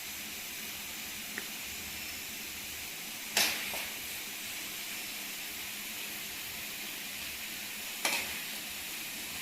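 Potatoes and pointed gourd (parwal) sizzling in oil in a kadhai, a steady hiss, with two short knocks of a utensil against the pan, one about three seconds in and one near the end.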